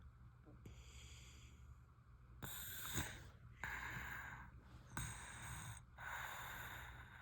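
A sleeping baby snoring. There is one faint breath about a second in, then about four louder, noisy breaths in quick succession, each less than a second long.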